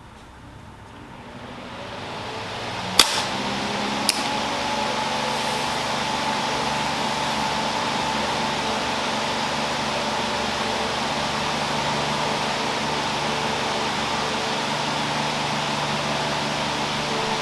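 Electric fan spinning up over the first few seconds, then running steadily with a whooshing rush of air and a faint motor hum. Two sharp clicks stand out, about three and four seconds in.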